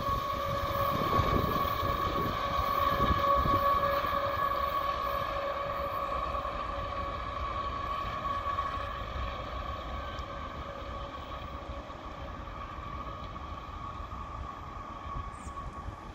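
Rear distributed-power locomotive, a GE AC4400CW diesel-electric, running at the tail of a long freight train as it moves away, with a steady whine over a low rumble. The sound fades gradually.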